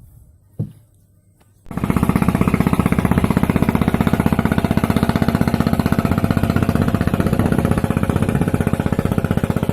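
A boat engine running loud and steady with a fast, even pulse. It cuts in abruptly about two seconds in, after a single knock.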